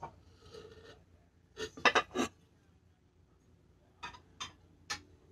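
Ceramic and glass pieces clinking and knocking as a cake plate is set aside and the next ornament handled: a soft rustle, then a quick cluster of about four clinks around two seconds in and three more single clinks near the end.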